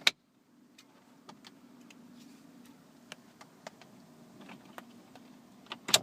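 Scattered light clicks and taps of hand work on plastic dashboard trim and controls, over a faint steady hum. A sharp click at the start and a short cluster of louder clicks near the end.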